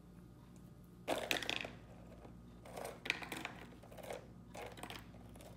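Croutons tipped from a plastic tub into a plastic salad container, rattling in several short bursts, the first and loudest about a second in.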